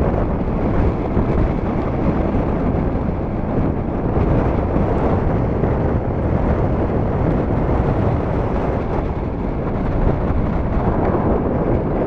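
Strong storm wind buffeting the camera microphone: a loud, steady low rumble, over the wash of small waves breaking on a gravel lakeshore.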